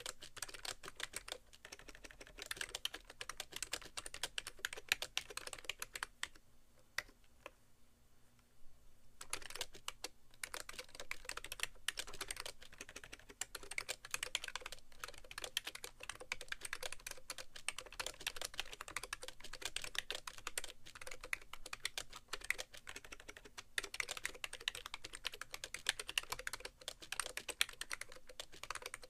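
BTC 5100c (SIIG Minitouch Plus) mini keyboard with rubber-dome switches and sliders, typed on rapidly and continuously as it sits on a bare keyboard tray. The typing stops for about three seconds some six seconds in, then resumes at the same pace.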